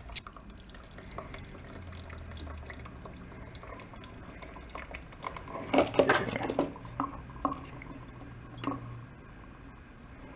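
Stale gasoline trickling and dripping from a small engine's carburetor into a plastic jug, drained because the old fuel is bad. A cluster of knocks from handling parts about six seconds in, and single knocks a few seconds later.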